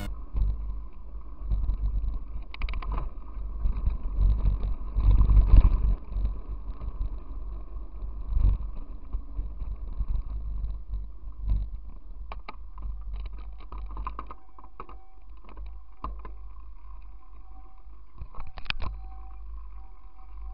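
Mountain bike riding down a rough dirt singletrack, heard through a bike- or helmet-mounted action camera: a steady low wind rumble on the microphone with frequent clattering knocks and rattles as the bike goes over bumps, busiest in the first half.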